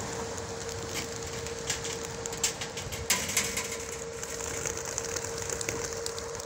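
A mass of racing pigeons flying overhead just after release: a steady rush of wingbeats, with sharp wing claps clustered around the middle. A steady hum runs underneath.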